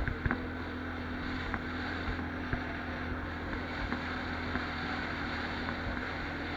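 Can-Am 570 ATV engine running steadily, with a few sharp knocks from the machine.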